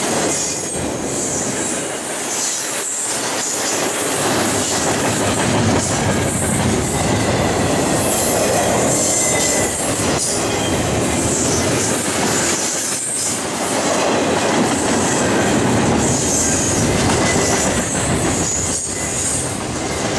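Double-stack intermodal well cars of a freight train rolling past steadily, steel wheels rumbling and clicking on the rails, with a high wheel squeal that comes and goes.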